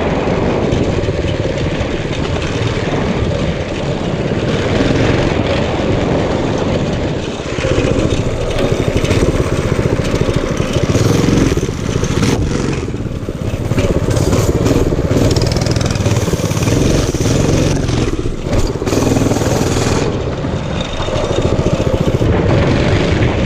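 A 208cc, 6.5 hp single-cylinder small engine on a mini bike, running loud and continuously, its level swelling and dipping every few seconds.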